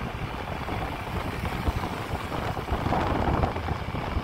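Wind buffeting the microphone: an irregular low rumble over a steady outdoor hiss, with no clear engine note or voices.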